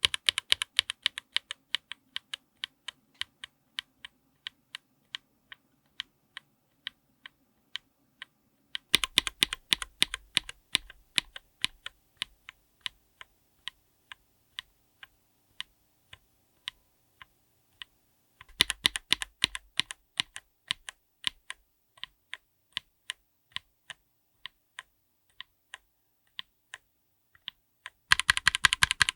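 Linear mechanical keyboard switches under GMK keycaps being typed: a fast flurry of keystrokes that slows into single, evenly spaced presses, starting over about every nine seconds.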